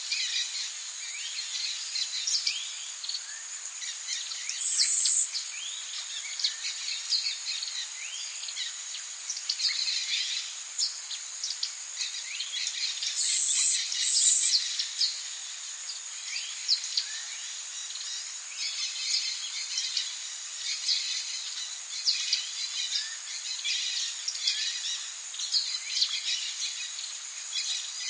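Tropical rainforest ambience: many birds chirping and calling over a steady high-pitched insect drone. Louder, high buzzing insect calls come in briefly about five seconds in and twice in quick succession around fourteen seconds.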